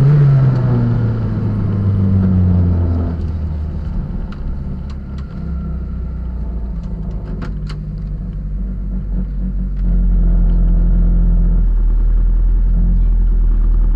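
Rally car engine heard from inside the cabin, its revs falling away in the first few seconds and settling into a low steady running note, with a few light clicks in the middle. About ten seconds in, a louder steady low rumble sets in.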